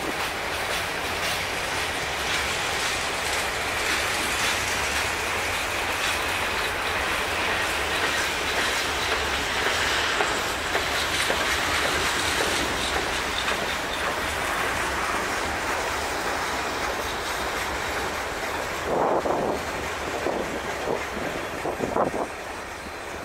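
Central Manitoba Railway manifest freight's covered grain hopper cars rolling past, wheels clattering on the rails in a steady rumble. Near the end the last cars pass and the noise turns uneven, then drops.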